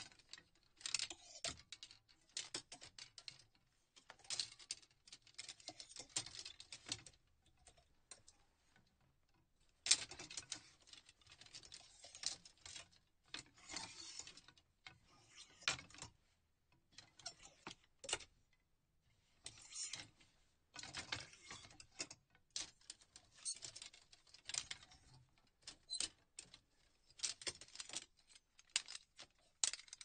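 Clothes hangers in a closet being handled, clicking and rattling against each other and the rail in irregular clusters of sharp clacks, with short pauses between clusters.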